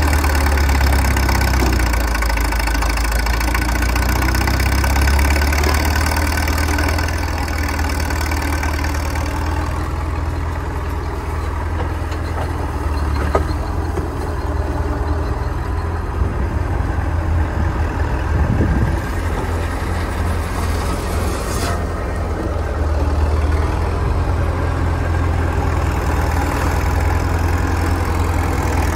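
Small cable-operated power shovel's engine running steadily while the machine digs, swings and dumps, with a few sharp clanks from the machinery about halfway through and again later.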